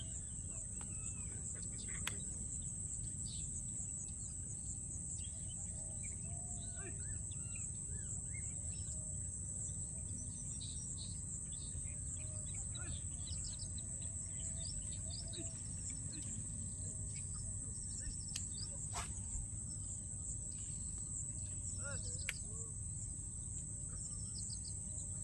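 Wetland ambience: insects drone steadily at a high pitch, with scattered bird chirps over a low steady rumble. A few sharp clicks stand out, about two seconds in and twice near the end.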